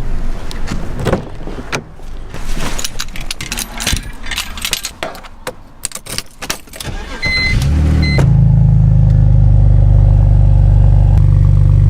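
Keys jangling and clicking for several seconds, two short electronic beeps, then the BMW E46 325i's inline-six engine starts about eight seconds in and idles steadily.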